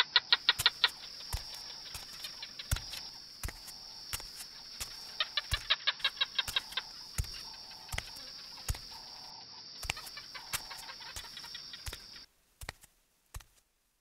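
Creature sound effect of animal calls: two quick runs of short calls, about eight a second, one at the start and one about five seconds in, over a steady high-pitched hiss that cuts off suddenly near the end. Scattered sharp taps run throughout.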